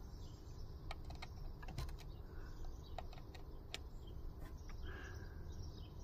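Plastic push-buttons on a plug-in energy meter clicking, about a dozen faint, irregular presses, as the meter's readings are reset.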